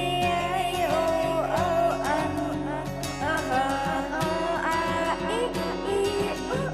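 Upbeat instrumental music: a gliding melody line over held lower notes and a steady beat.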